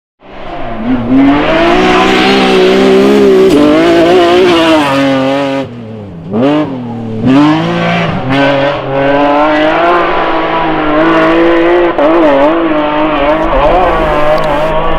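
BMW rally car engine revving hard at high revs, coming in a moment after the start. Its pitch climbs and falls with gear changes and lifts, with sharp drops a little before and after the middle.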